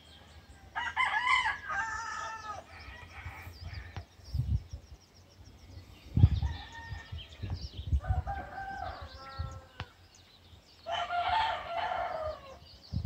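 Roosters crowing: three long crows of about a second and a half each, one near the start and two in the second half. Several low thumps on the microphone, the loudest a little past the middle.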